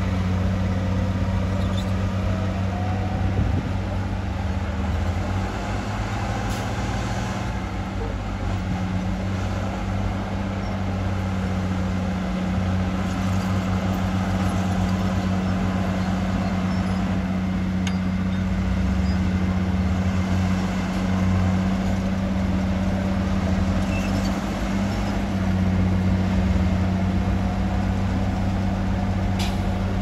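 Heavy diesel engine of earthmoving machinery running steadily, a deep continuous drone.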